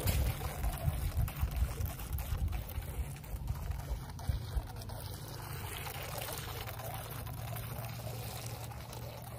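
Small twin-motor electric RC jet ski (SMRC M5) churning and splashing water as it pulls away, loudest in the first two or three seconds, then quieter and steadier as it moves off. A low rumble runs underneath.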